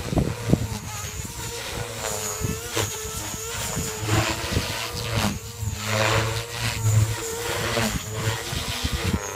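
JR Forza 450 electric RC helicopter flying with EDGE 353 mm main rotor blades: a steady motor and gear whine with rotor whoosh. The pitch wavers up and down as the headspeed dips and recovers under the manoeuvres.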